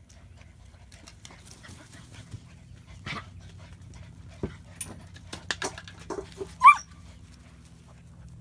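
German Shepherd puppies playing and tussling, with scattered short clicks and scuffles. Near the end one puppy gives a single short, high-pitched yelp, the loudest sound.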